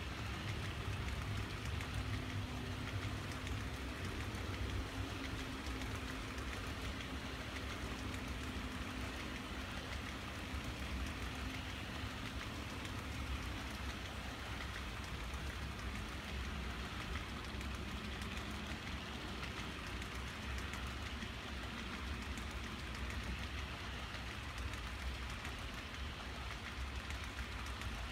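Model train of flatcars loaded with highway trailers rolling past on track: a steady rattle of small metal wheels on rail with many fine clicks and a low rumble underneath.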